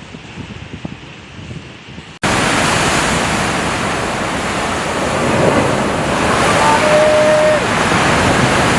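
Steady rushing water noise, cutting in abruptly about two seconds in after a quieter, rumbling stretch; a short steady tone sounds over it near the end.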